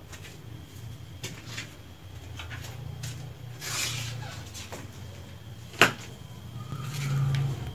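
Handling and movement noises of someone picking their way through a debris-strewn passage: scattered scuffs, clicks and rustles, with one sharp knock about six seconds in. A low hum comes in near the end.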